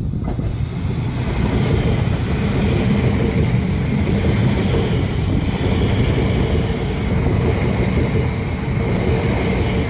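A car running steadily, engine and road noise.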